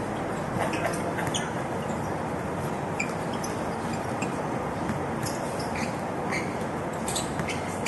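Steady background noise of an outdoor basketball game, broken by a few short, sharp sounds from play on the court.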